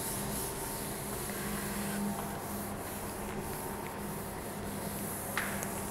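Room tone: a steady hiss with a constant low hum, and a faint click near the end.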